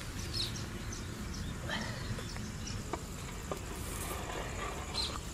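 Outdoor rural ambience: insects and a few short bird chirps over a low, steady rumble, with two light clicks about three seconds in.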